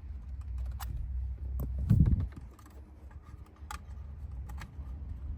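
Scattered small plastic clicks and taps from handling a replacement dashboard climate control panel and plugging in its wiring connector, with one dull bump about two seconds in.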